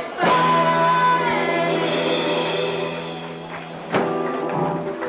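Live rock band hitting a final chord with a drum and cymbal crash, the chord held and ringing out on guitar and keyboard as it slowly fades, then one more sharp hit about four seconds in.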